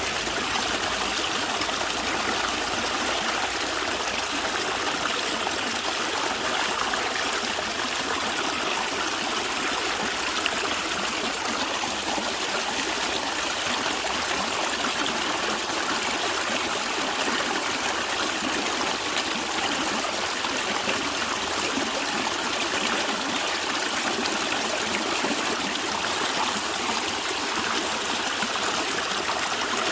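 A stream of water running and gurgling steadily, an even rushing with trickling over it.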